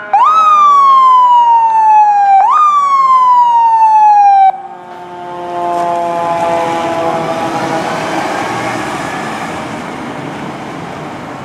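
Fire engine siren sounding: twice its pitch jumps up sharply and then slides slowly down, and it cuts off abruptly about four and a half seconds in. Fainter falling tones then fade out over the noise of the engine and road as the truck drives past.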